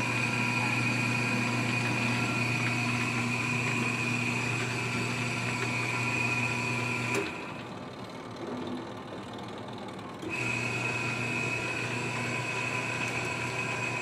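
Top-loading washing machine's motor running with a steady hum and high whine as the tub churns the wash, cutting off about seven seconds in and starting again about three seconds later as the cycle pauses between turns. The machine runs on a fitted manual timer after its automatic controls failed.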